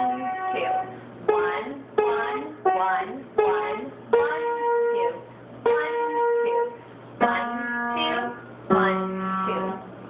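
Upright piano playing a slow beginner's piece on a group of three black keys: single notes struck about once a second, each left to ring. Lower notes come in near the end.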